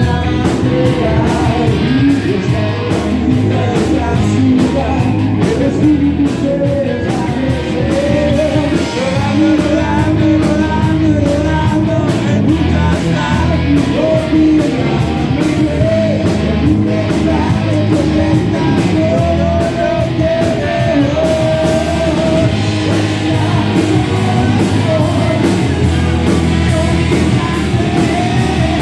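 Rock song played by a full band, with a singing voice over guitars.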